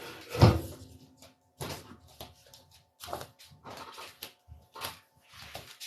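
Scattered knocks and handling noises, with one heavier thump about half a second in.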